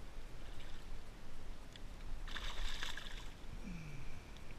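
Kayak paddle stroke: the blade splashes through the water for about a second, two seconds in, with water trickling off it, over a low steady rumble.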